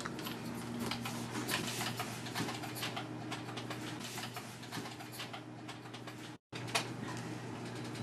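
Faint, irregular clicking of a computer keyboard and mouse being worked, over a steady electrical hum. The sound cuts out for an instant about six and a half seconds in.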